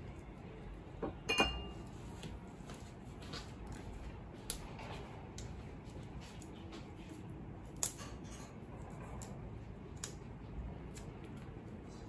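Quiet handling noise: a few light clicks and knocks over faint room tone, the loudest about a second in.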